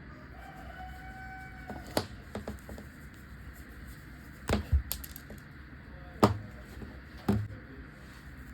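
Several sharp clicks and knocks a second or two apart, from hand tools and plug parts being handled while an AC plug is rewired. A faint, held, crow-like call is heard near the start.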